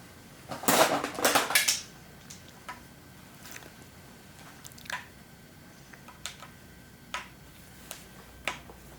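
Metal tools and parts being handled and clattering together: a loud burst of rattling, clinking metal about a second in, then single light clinks and taps every second or so.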